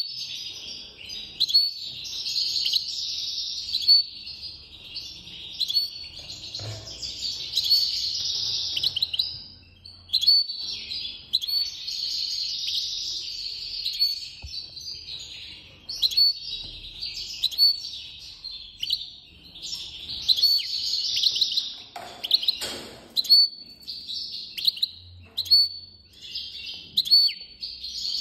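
European goldfinch singing a fast, high twittering song in phrases of a few seconds each, broken by short pauses and studded with sharp clipped notes.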